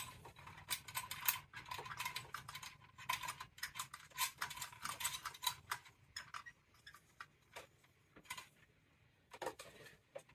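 Quick little clicks and taps of wires and terminals being handled inside a boiler aquastat's metal control box, dense for about six seconds, then only a few scattered ticks.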